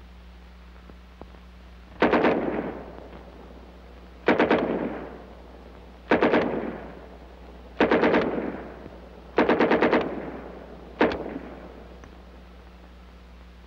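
Submachine gun firing six short bursts of a few rounds each, about every one and a half to two seconds, each followed by an echo that trails off; the last burst is the shortest. A steady low hum runs underneath.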